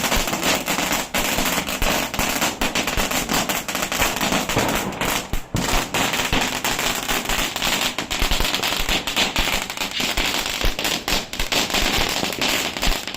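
Starvell 'Lollipop' firework crackling: a dense, unbroken stream of small rapid pops.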